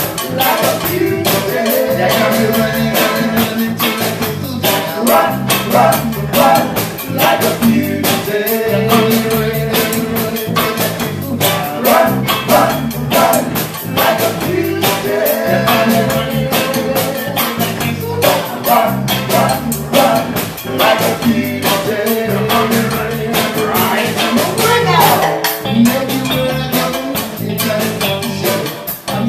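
Live reggae band playing: a steady drum-kit beat, keyboards and guitar, with a man singing lead into the microphone.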